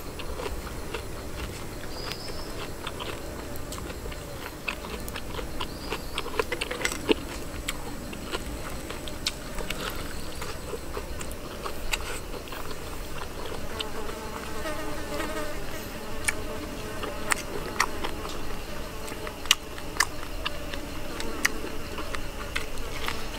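Flying insects buzzing, with scattered sharp clicks from someone chewing and eating a grilled chicken leg.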